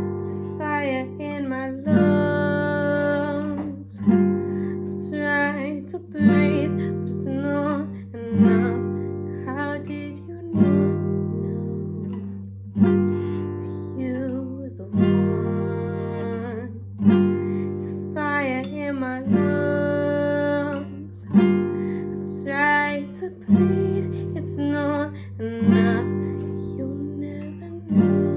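A woman singing to her own strummed classical guitar, a new chord struck about every two seconds.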